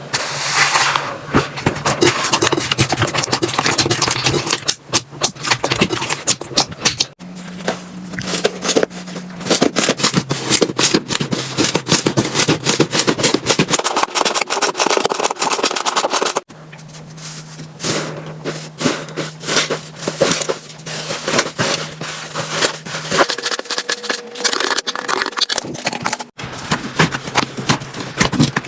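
Slime being squeezed, pressed and poked by hand, giving a dense run of sticky crackles, clicks and pops. The texture changes abruptly about 7, 16 and 26 seconds in as one slime clip cuts to the next.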